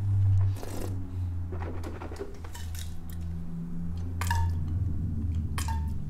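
Glassware clinking as it is handled: a few light knocks, two of them, about four and five and a half seconds in, with a short ringing note.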